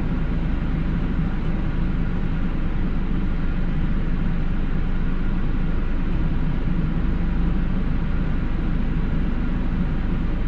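Car's engine idling, heard inside the cabin as a steady low hum.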